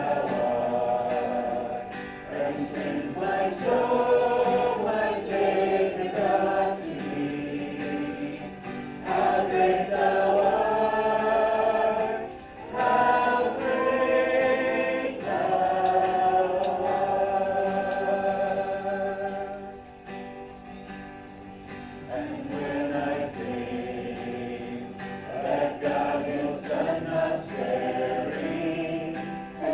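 A congregation singing a hymn together in unison, in sung phrases with a short softer stretch about two-thirds of the way through.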